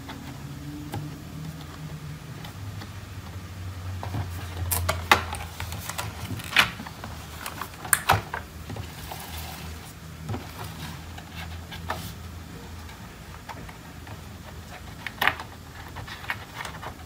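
Unboxing handling of a Surface Pro Signature Type Cover's cardboard box and clear plastic tray: scattered light taps and clicks with a brief rustle, over a low steady hum.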